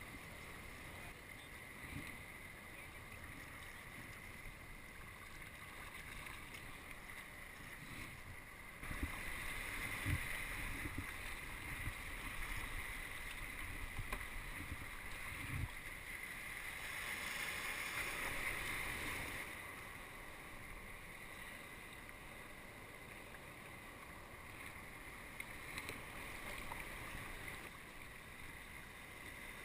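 Water sloshing and splashing around a sea kayak out on the water, with some wind on the microphone. About nine seconds in it turns louder and rougher for roughly ten seconds, with a few low knocks, then settles back.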